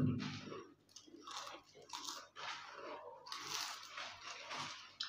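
Lay's potato chips being bitten and chewed: a run of crisp crunches, one every half second or so, at an irregular pace.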